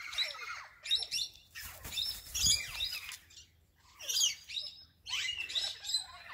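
Birds chirping and calling: many short high chirps and quick gliding calls in clusters, with a brief lull about halfway through.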